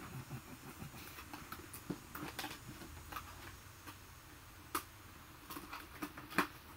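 Light, irregular clicks and taps of plastic doll packaging being handled as a small accessory is worked free, with a few sharper clicks in the second half.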